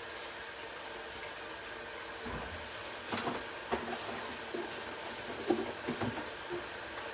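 Tomato sauce simmering in a pan on an induction hob, under a steady faint hum. From about two seconds in come a run of short, light clicks and knocks as kitchen things are handled.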